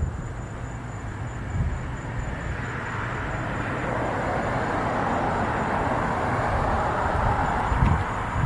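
Distant vehicle noise, a broad rushing sound that swells from about two seconds in and stays up, with low wind rumble on the microphone and a faint steady high whine.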